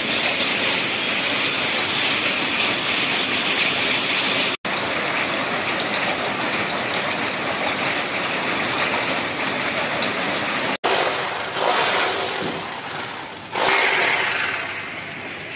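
Steady hiss of rain falling on leaves and corrugated metal roofs. It breaks off abruptly twice where the recording cuts, and grows louder near the end.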